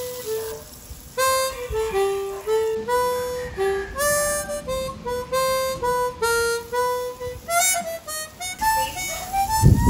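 Background music: a slow single-line melody on a reedy wind instrument, one held note after another. A low thud comes near the very end.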